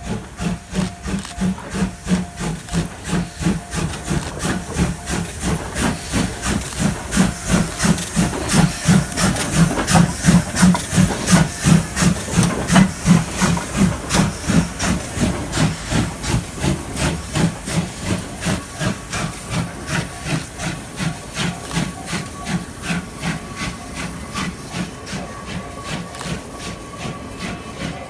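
Steam locomotive D51 498 working past with a steady, rhythmic exhaust chuff, about three beats a second, over a hiss of steam. The beats grow louder to a peak about halfway through, then fade as it moves away.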